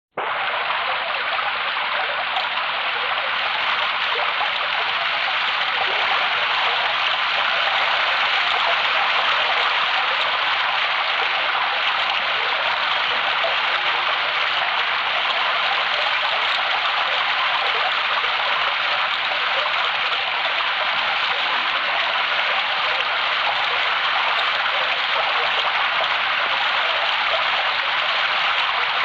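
A steady rush of falling water, like heavy rain, played from a vintage sound-effects record; it starts abruptly out of silence and runs on evenly without thunder or other events.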